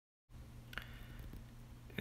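Dead silence for the first quarter second, then faint room tone with a low steady hum and a single light tick a little under a second in.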